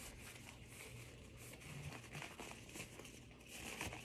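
Disposable exam gloves being pulled onto the hands, the thin glove material rustling and crinkling faintly, a little louder near the end.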